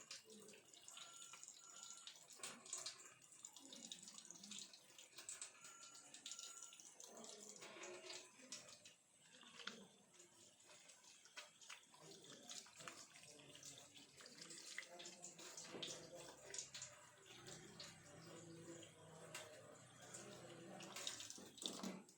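Faint running and splashing water with many small clicks and knocks.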